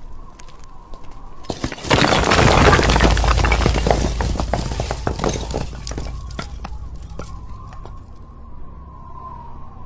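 A brick wall collapsing: a few scattered cracks, then about two seconds in a sudden crash with a deep rumble as the bricks come down, clattering and fading away over the next few seconds.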